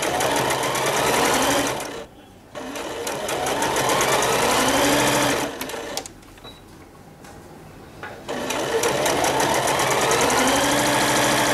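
Electric sewing machine stitching a straight seam in three runs with short pauses between them; each run starts with a rising whine as the motor picks up speed, under a rapid ticking of the needle.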